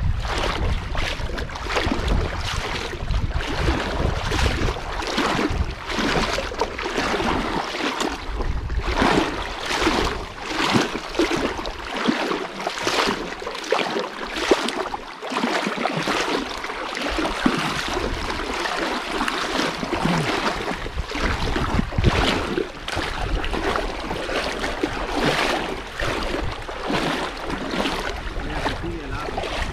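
River water rushing and splashing, with many short irregular splashes and a low rumble that fades for a few seconds in the middle and then returns.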